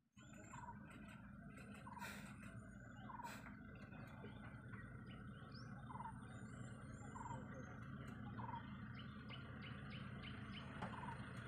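Faint wild birds chirping: short calls repeated every second or so, with a quick run of higher notes near the end, over a low steady hum.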